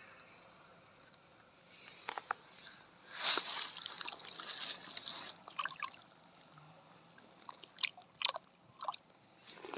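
Water sloshing and splashing, strongest about three seconds in, followed by a few short sharp splashes or clicks near the end.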